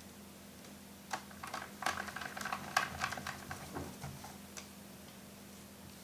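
A quick run of small metal clicks and taps for about three and a half seconds: a screw being set into a laptop's metal hard-drive caddy and a small screwdriver working on it.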